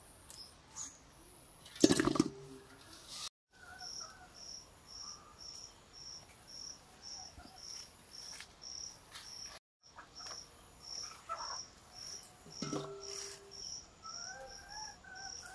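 An insect chirping steadily in a high pitch, about two chirps a second, with faint bird calls. Two knocks with a short metallic ring, about two seconds in and again near the end.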